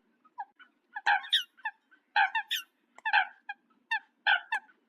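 Eurasian coots calling: a run of short calls, often in quick clusters of two or three, several a second.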